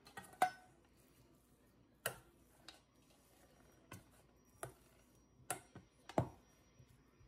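Metal spoon knocking and scraping against a stainless steel bowl as boiled potatoes are mashed: irregular clinks, about eight, the loudest near the start and about six seconds in.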